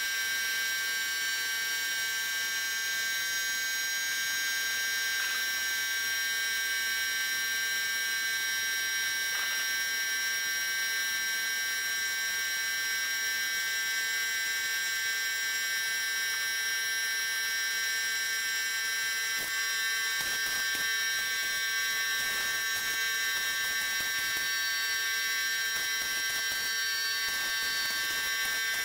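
An electric motor running steadily, giving a buzzing whine made of several steady high tones.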